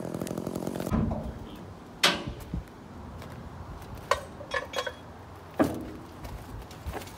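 A chainsaw engine running steadily, cut off about a second in. Then five or six sharp metallic clanks and knocks, spread a second or so apart, from metal gear being handled on a flatbed trailer carrying a tractor.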